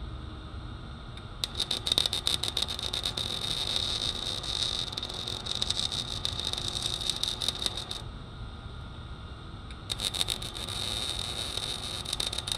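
Electric arc welding on a steel bar: the arc crackles steadily in two runs, the first starting about a second and a half in and stopping at about eight seconds, the second starting about two seconds later and going on past the end.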